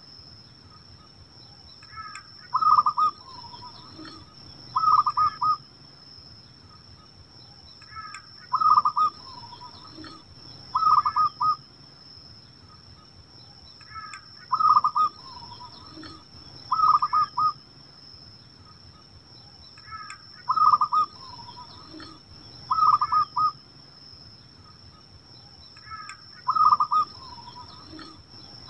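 Zebra dove (perkutut) cooing: the same song phrase repeats about every six seconds, five times, each phrase a coo followed by a quick stutter of short notes.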